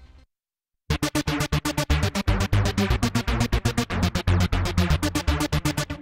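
Tone2 Gladiator 4 software synthesizer playing an arpeggiator preset: a fast, even run of short staccato notes, about eight a second, over a heavy bass. It starts after a brief gap about a second in, following the fading tail of the previous preset.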